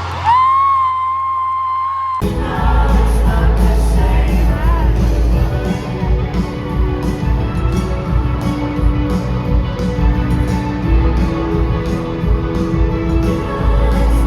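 Live pop concert music heard through a phone recording. A singer holds one long high note, then full band music with singing takes over abruptly about two seconds in.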